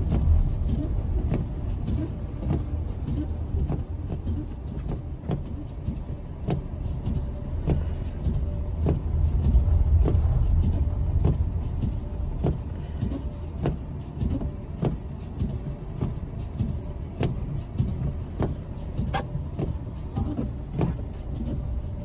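Car driving on a snowy road heard from inside the cabin: a steady low rumble of engine and tyres that swells about halfway through, with frequent irregular sharp ticks over it.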